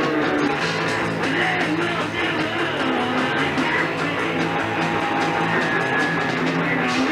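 Rock band jamming: electric guitars, bass and drums playing together, the drums struck with a pair of tree branches instead of drumsticks.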